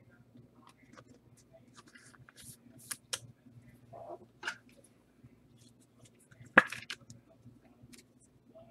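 Trading cards and their plastic wrappers and sleeves being handled: faint scattered rustles and clicks, with one sharp snap about two-thirds of the way through.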